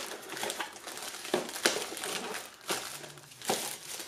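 Thin clear plastic wrap being pulled off cardboard light-bulb boxes and crumpled, crinkling and crackling in irregular bursts.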